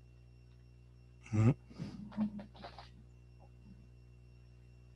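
Steady low electrical hum. About a second and a half in, a short loud vocal sound falling in pitch, followed by a few brief quieter voice sounds.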